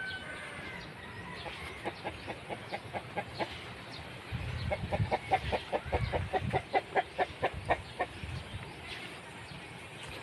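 Chickens clucking in a steady run of short clucks, about four or five a second, growing louder about halfway through and stopping about two seconds before the end.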